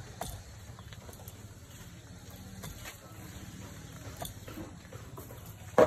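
A steel digging bar and spade striking into a hard earthen termite mound: irregular short knocks, with one much louder sharp strike near the end.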